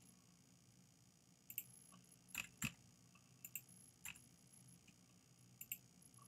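Scattered sharp clicks of a computer mouse and keyboard, about ten in all, several in quick pairs, the loudest two close together a little past two seconds in, over a faint steady low hum.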